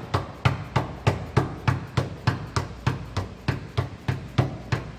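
Dead blow hammer striking a new steel pinion yoke to drive it onto a Dana 30 axle's pinion shaft and into the seal, a steady run of about three blows a second that stops at the very end.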